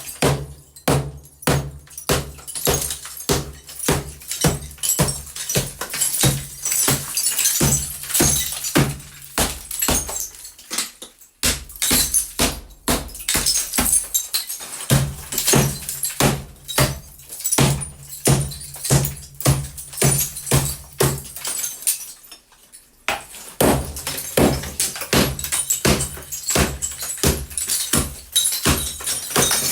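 A hammer repeatedly striking and breaking up a wall, about two blows a second with a crumbling, breaking sound, pausing briefly twice.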